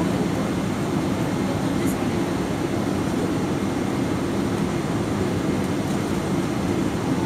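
Steady low hum and rumble inside the cabin of a Boeing 777-200ER on the ground, its GE90 engines running at idle.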